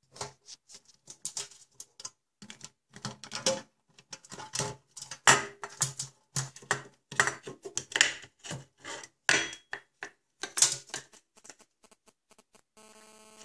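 African grey parrot clattering an orange plastic cup and plastic toys against a stainless-steel sink and steel pot: an irregular run of sharp clacks and knocks, several a second. A steady hum comes in near the end.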